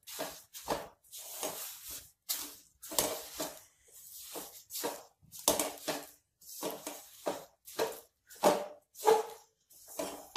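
A spatula scraping and stirring through roasted sesame seeds and hot jaggery syrup in a metal kadhai, mixing the seeds into the syrup. It makes short scraping strokes, about two a second.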